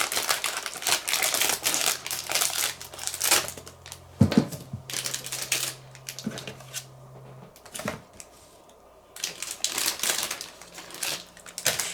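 Plastic bags of model-kit parts crinkling and rustling as they are handled, with clicks and a few sharper knocks. The loudest knock comes a little after four seconds in, and the handling goes quieter for a few seconds in the middle.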